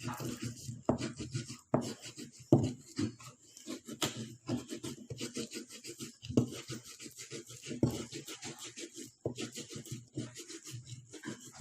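Pestle (ulekan) grinding in a cobek mortar: repeated uneven scraping and pounding strokes, a couple a second, as chilies, salt and toasted shrimp paste are crushed into sambal.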